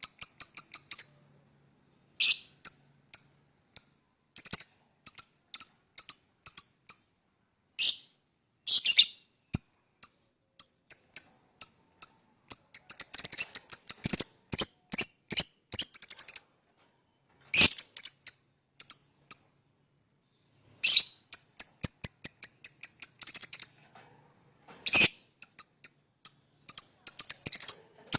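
Green Fischer's lovebird chirping: fast runs of short, high-pitched chirps, several a second, in bursts broken by brief pauses.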